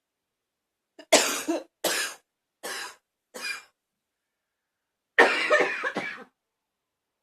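A person coughing with a persistent cough: four single coughs a little under a second apart, each softer than the last, then after a pause a louder fit of several coughs run together.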